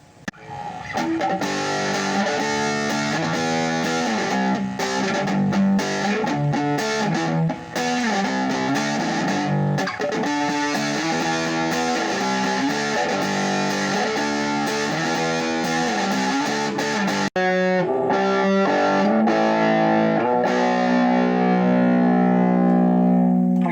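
Electric guitar played through a Deviser TG-15 15-watt practice amp with a distorted, effects-laden tone: strummed chords and riffs, ending on a long held chord that cuts off near the end.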